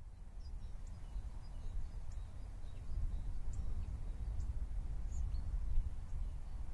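Outdoor ambience: a steady low rumble with faint, short bird chirps scattered over it.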